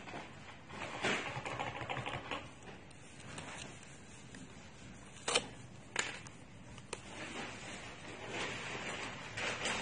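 Fingers handling parts inside an opened laptop: scraping and rustling, with three sharp clicks about a second apart a little past the middle.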